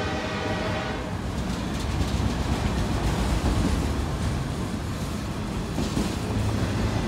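Autorack cars of a passing CSX freight train rolling by, a steady rumble of steel wheels on the rails. A steady pitched tone stops about a second in.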